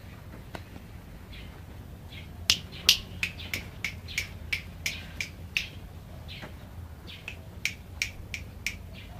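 Red-whiskered bulbul giving a rapid series of sharp, clicking chip calls, about three a second, starting a couple of seconds in with a short pause in the middle. The first few notes are the loudest.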